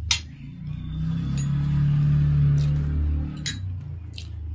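A metal fork clinking against a ceramic plate of noodles, one sharp clink at the start and another about three and a half seconds in, over low background music.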